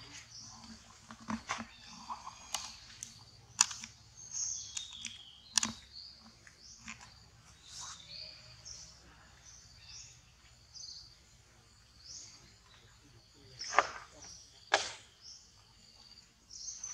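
Birds chirping repeatedly in high, short calls, broken by a few sharp clicks or taps, the loudest two in quick succession late on.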